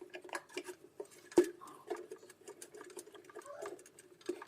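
Irregular small clicks and taps of metal heater parts and screws being handled while an electric room heater is put back together, with one louder knock about a second and a half in, over a faint low hum.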